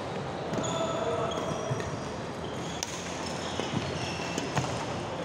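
Badminton rally on an indoor court: a few sharp racket hits on the shuttlecock and short high squeaks of court shoes on the floor, over the din of a busy sports hall.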